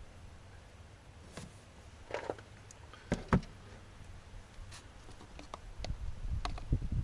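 Handling noises: a few light clicks and knocks, the loudest a pair about three seconds in, over a low rumble that grows louder near the end.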